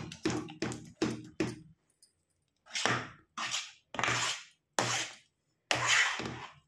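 A steel spoon stirring and scraping thick maize-flour dough against the sides of a steel pot. A run of quick short strokes comes first, then about five slower, longer scrapes of half a second or so each.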